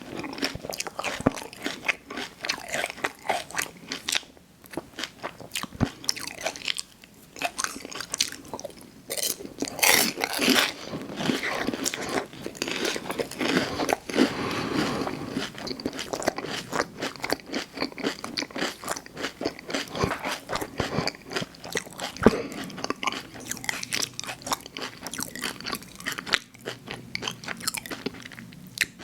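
Close-miked eating: a person biting and chewing with a steady run of crunching and crackling mouth sounds, a few bites louder than the rest.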